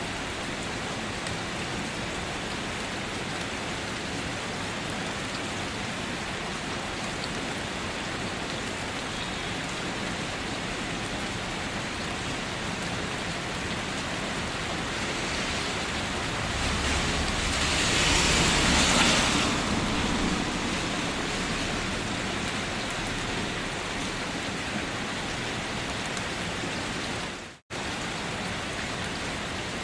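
Steady rain falling, an even hiss of drops. About two-thirds of the way through it swells louder for a few seconds with a low rumble underneath, and near the end the sound cuts out for an instant before resuming.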